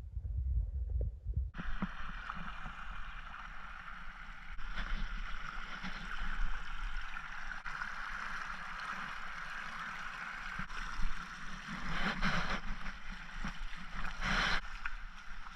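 Steady rush of running water in a shallow creek, with low thumps at the start and two louder swells of water noise near the end.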